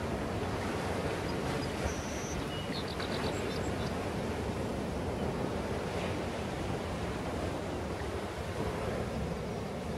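Ocean surf breaking on a beach, heard from a distance as a steady wash of noise, with some wind on the microphone. A few short, high chirps sound about two to three seconds in.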